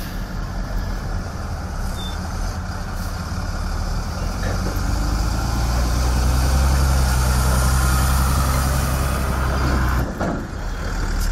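Engines of heavy trucks and site machinery running steadily, louder from about halfway through and dipping briefly near the end.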